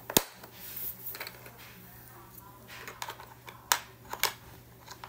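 Hard plastic letter pieces clicking and knocking against a plastic alphabet puzzle tray as they are picked up and fitted: a sharp click just after the start, then scattered lighter clicks, with two more sharp ones about three and a half and four seconds in.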